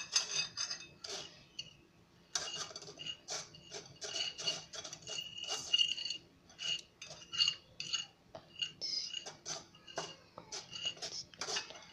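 Metal fork scraping and clinking against a glass bowl while stirring powder: quick, irregular strokes, several a second, many with a short ring of the glass, pausing briefly near two seconds in.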